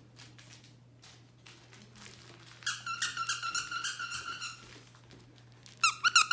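Squeaky banana dog toy squeaking in quick runs: a string of squeaks about three seconds in, then a louder, sharper burst near the end.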